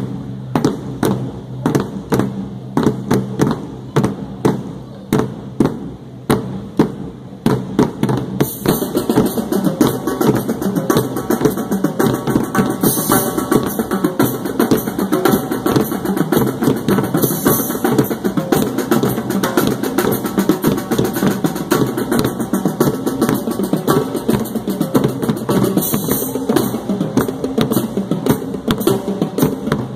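Marching drumline of bass drums, snare drums and tenor drums playing a cadence. It opens with spaced-out strikes, and about eight seconds in the full line comes in with fast, dense drumming that carries on.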